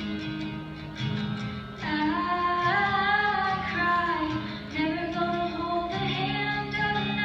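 Live country-style song performance: strummed acoustic guitar, joined about two seconds in by a teenage girl's solo singing voice.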